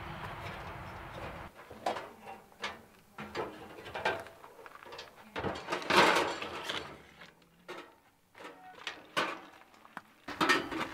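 Irregular metal clicks, clanks and rattles of a portable grill being handled and lifted off the rack on a teardrop camper's tongue, the loudest clank about six seconds in. A steady hiss comes first and stops about a second and a half in.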